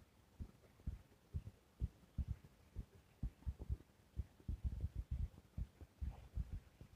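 Pen writing on a notebook page, heard as faint, irregular low thuds and taps as the strokes press into the paper.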